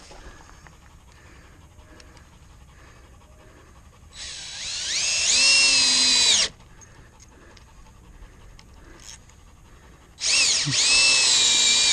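Cordless drill driving screws into a wooden 2x4 stringer, in two runs. The first winds up from a low whir to a steady high whine over about two seconds; the second starts suddenly at full speed about ten seconds in.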